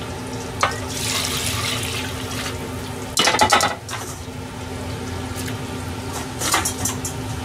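Liquid poured from a second pot into a saucepan of simmering oden, a running splash, then a loud clatter of cookware knocking a little past the middle. A few lighter knocks follow near the end as mushrooms go into the pan.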